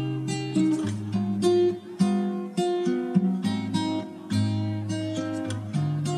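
Background music: an acoustic guitar plucking a melody over a low bass line, with notes coming about one to two a second.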